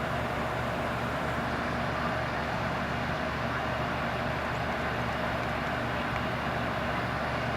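1980s Carrier Round 1 heat pump running in cool mode: a steady low hum under the even rush of its condenser fan.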